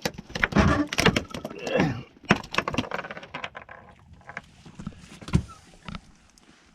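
Irregular knocks, clatter and rattling of handling on a small boat, busiest in the first two seconds, then a few scattered thumps.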